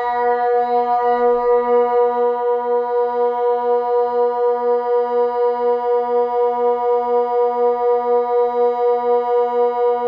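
Kockum Sonics Delta 4 electronic siren sounding a loud, steady, low tone at an unchanging pitch that wavers about two to three times a second. It is the continuous-tone water alarm signal warning of flooding from the dam upstream.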